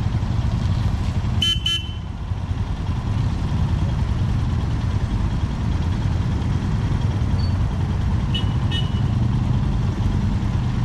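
Motorcycle engines running with a steady low rumble. About one and a half seconds in, a horn beeps twice in quick succession, and two fainter short beeps come near the end.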